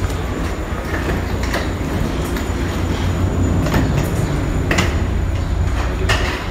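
Footsteps along an airport jet bridge over a loud, steady low rumble, with a few sharp knocks about a second apart.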